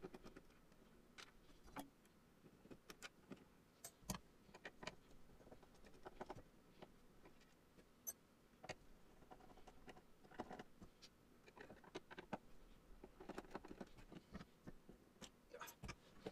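Faint, irregular clicks and light metallic taps from a screwdriver and small machine screws being handled while the switch banks are unscrewed from a synthesizer keybed.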